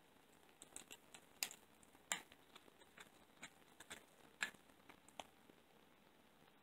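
A cat chewing and crunching a raw Cornish hen leg: a string of sharp, irregular crunches and clicks from its teeth on the bone, three of them much louder than the rest, stopping about five seconds in.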